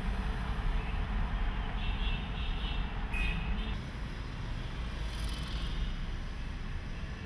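Car driving through city traffic: a steady low rumble of engine and road noise, with a few short high-pitched tones about two to three and a half seconds in.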